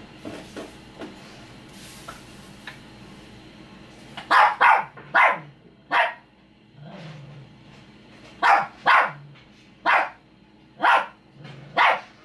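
Dog barking: a run of four sharp barks about four seconds in, then after a short pause five more, roughly a second apart.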